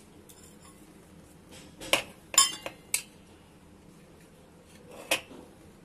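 Metal spoon clinking against a steel bowl while stirring custard powder into milk: a few separate sharp clinks about two to three seconds in, and one more near the end.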